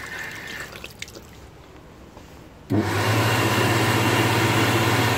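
A stainless-steel electric hand dryer switches on suddenly about halfway in and runs with a loud, steady rush of air over a low motor hum. Before that, a tap's water runs briefly into a ceramic sink and dies away.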